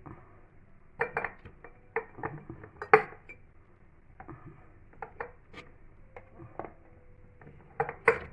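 Cucumbers being packed into glass jars for pickling: irregular knocks and clinks against the glass, the loudest about three seconds in.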